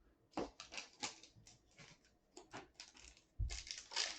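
Trading cards and a foil card pack being handled on a table: scattered light clicks and rustles, then a louder thump and crinkle near the end.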